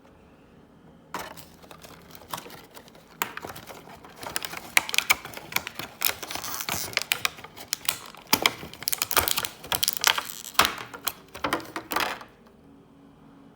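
Small plastic parts and packaging being handled: an irregular run of sharp clicks and crinkling, starting about a second in and stopping about a second before the end.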